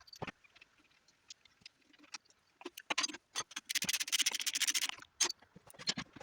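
Metal hand tools clinking and knocking, with a fast run of ratchet clicks about four seconds in.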